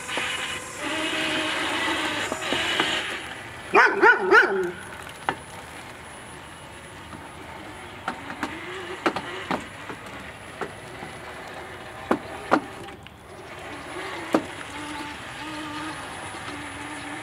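Yarbo tracked robot's electric drive running as it crawls and turns through long grass, a steady low whine that wavers in pitch as it manoeuvres, with scattered clicks. About four seconds in, three loud short sharp cries cut through.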